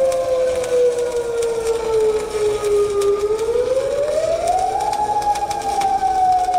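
Tsunami warning siren wailing: its pitch sinks slowly, rises over about two seconds past the three-second mark, then eases down again. Under it, the crackle of a stick welding arc.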